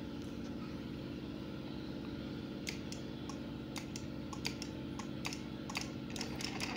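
Hand-crank start of a miniature single-cylinder Dongfeng-style diesel engine model: sharp separate clicks as the crank handle is turned, starting a few seconds in and coming faster toward the end, over a steady low hum.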